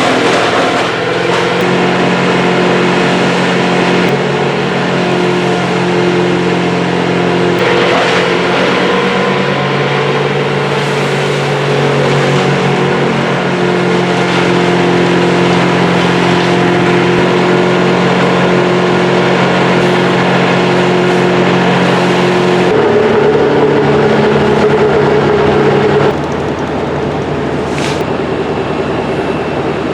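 Tree-service machinery engine running steadily, its pitch and load shifting several times, notably about 23 seconds in and dropping in level about 26 seconds in.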